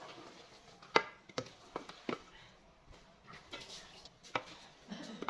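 A wooden spoon knocking against a metal cooking pot as food is stirred: a handful of sharp, irregular knocks, the loudest about a second in.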